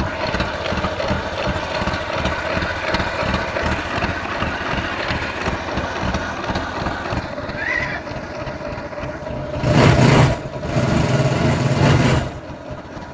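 Bajaj Discover 135's single-cylinder engine idling steadily as it warms the oil before an oil change. Near the end come two louder bursts, then the sound dies away.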